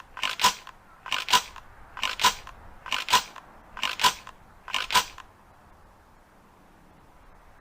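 The action of an Ithaca Model 37 pump-action shotgun being worked by hand: six sharp metallic double clicks, about one a second, then quiet.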